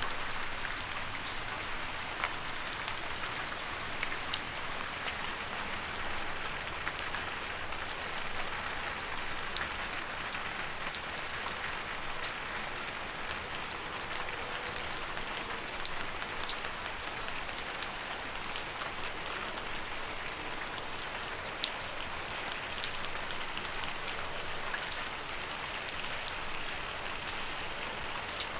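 Steady rain falling, an even hiss of rainfall with the sharp ticks of individual drops striking a surface scattered through it.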